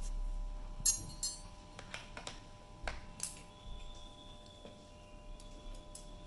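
Handling and opening a glass spice jar of dried mixed herbs: a series of sharp clicks and light knocks from the jar and its cap, with a brief high rattle about a second in.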